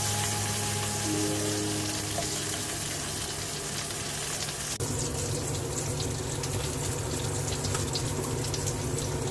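Small whole fish, grilled yellow croaker, sizzling in oil in a frying pan, with background music. About five seconds in, the sound gives way to a steadier hiss with many fine crackles.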